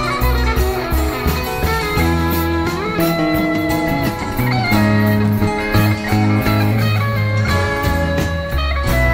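Live rock band playing an instrumental passage: an electric guitar lead with bending notes over bass and drums.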